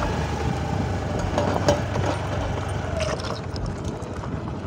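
Steady wind rumbling on the microphone in a fresh sea breeze, with a few brief faint voices of people in the background.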